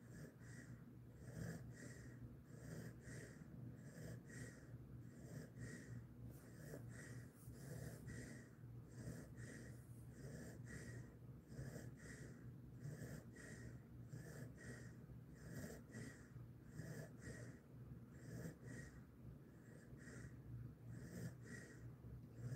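Faint, even breathing of a resting Jindo-mix dog lying with its nose close to the microphone: soft puffs of air at a steady rhythm, roughly three every two seconds.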